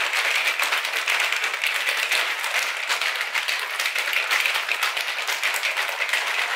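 Plastic shaker bottle of drink being shaken hard, giving a fast, continuous rattling and swishing noise at a steady pace.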